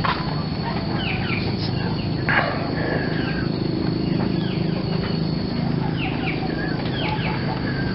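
Birds chirping again and again in short, falling calls. Under them run a steady low hum and the thin, steady high whine of insects.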